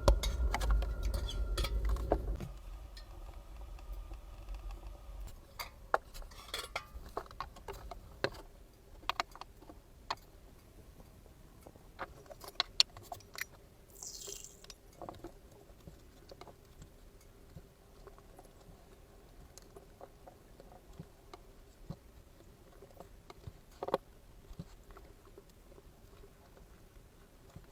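Quiet handling sounds: scattered light clicks and knocks over a faint steady hum. A low rumble fades out about two seconds in, and a short hiss comes near the middle.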